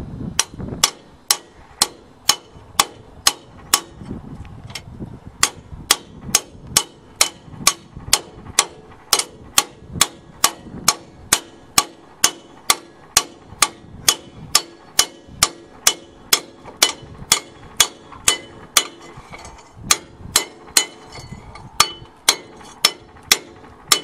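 Hammer blows on a steel driver, metal on metal, about two a second in a steady rhythm with a short pause near the start, each strike ringing briefly: a new rear axle bearing being knocked into the axle housing of a Case backhoe.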